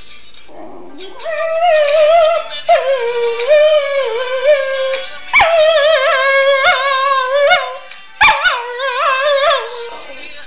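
A dog howling along to music, in four long, wavering, high-pitched howls.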